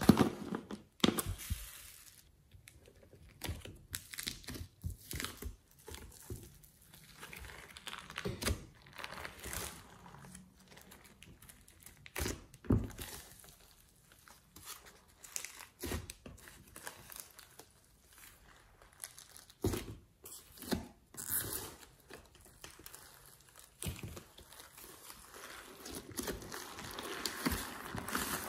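Handling sounds of slime play in a glass tray. Foam beads are tipped from a plastic jar onto glitter-topped slime, giving irregular clicks and rustles. Near the end a denser run of sound comes as hands knead and squish the slime.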